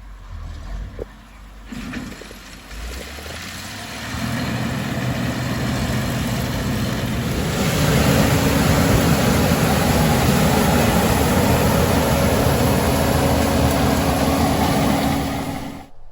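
Farm harvesting machinery starting work in a cornfield: its engine runs up about four seconds in and again around seven to eight seconds in, settling into a steady, loud mechanical running noise. A few knocks come before it builds.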